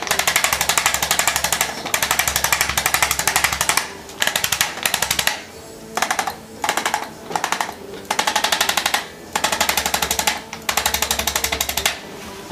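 Corded electric percussive chiropractic adjusting instrument firing rapid taps against the upper back and base of the neck, in repeated runs of about half a second to two seconds with short pauses between. It is working over muscle knots and trigger points.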